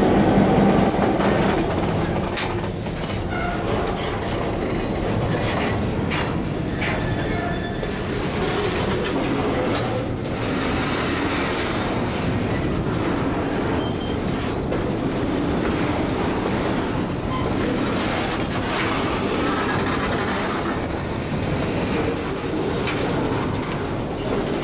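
Freight train cars rolling past on poorly maintained track: steel wheels clicking and clanking over the rails, with a few short metallic squeals. The locomotive's diesel engine is louder in the first second or two as it moves away.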